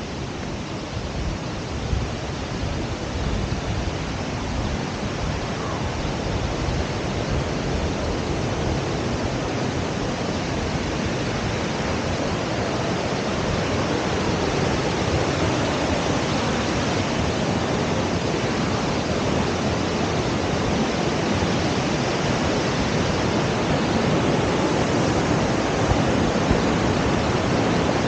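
Waterfall rushing: a steady hiss of falling water that grows gradually louder.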